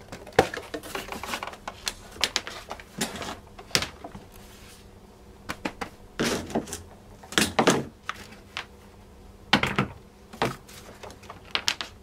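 Irregular clicks, knocks and rustling of hands rummaging among plastic vacuum parts and boxes, searching for a small plastic knob.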